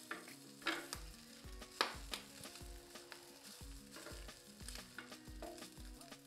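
Chopped sausage frying and sizzling in a pan, stirred with a utensil that clicks and scrapes against the pan now and then. Background music with a steady beat sits underneath.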